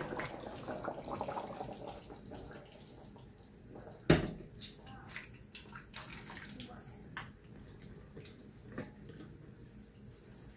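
Thick coconut-milk pork stew sloshing and plopping as it is poured from a stainless steel skillet into a glass baking dish. A single sharp knock about four seconds in is the loudest sound, followed by scattered soft clicks.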